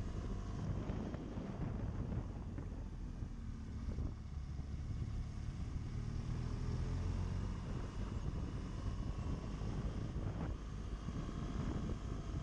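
BMW GS adventure motorcycle's engine running steadily while riding, mixed with wind noise on the microphone.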